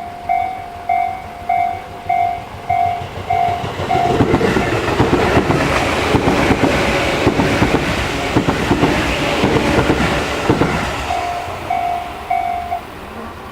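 Japanese level-crossing alarm with an electronic bell of the Tobu 'sound C' slow-tempo type, ringing about once every 0.6 seconds. A train passes over the crossing for about seven seconds, its wheels clattering and drowning the bell. The bell is heard again briefly and stops near the end as the crossing clears.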